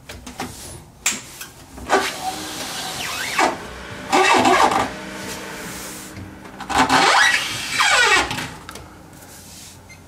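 Desktop PC powering up after the power button is pressed: fans and drives spin up, with a whine that rises and falls in two loud bursts, about four and seven seconds in, over a steady hum.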